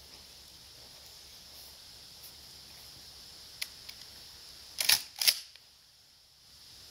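Shotgun action being worked: two sharp metallic clacks about half a second apart, the second the loudest, after a faint click a second earlier.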